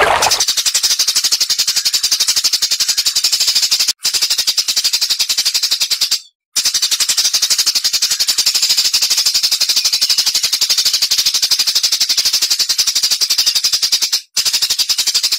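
A songbird's very rapid, dry chattering trill, high-pitched and machine-gun-like, in long runs broken by brief pauses about four seconds in, about six seconds in and near the end.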